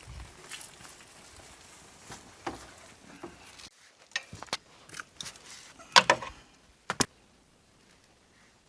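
Scattered sharp clicks and knocks of tools and parts being handled during motorcycle maintenance, the loudest a cluster about six seconds in and two sharp knocks about a second later.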